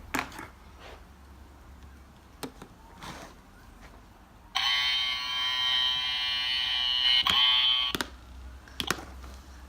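Play-Doh Buzz 'n Cut toy's battery buzzer clippers buzzing steadily for about three and a half seconds, starting about halfway in, after a few light clicks of handling the toy.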